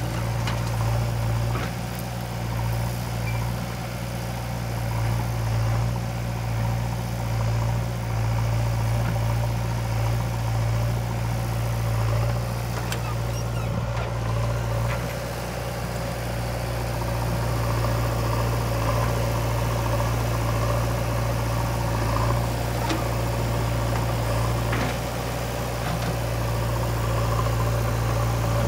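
Diesel engines of a JCB 3DX backhoe loader and a farm tractor running steadily, a low even throb, while the backhoe loads soil into the tractor's trolley. A few faint knocks sound here and there.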